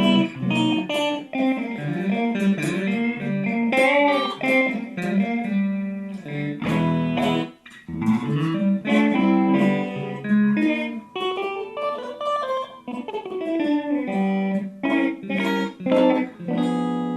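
Hand-built carved-top solid-body electric guitar, with its bridge and neck humbuckers both split to single coil, played through a Fender Blues Junior amp: a run of picked single notes and chords with some bent notes. It has a somewhat out-of-phase, chunky tone.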